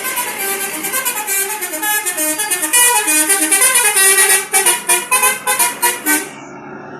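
A bus's Basuri telolet musical horn plays a fast, loud melody of short pulsing notes that step up and down in pitch. It cuts off a little after six seconds in.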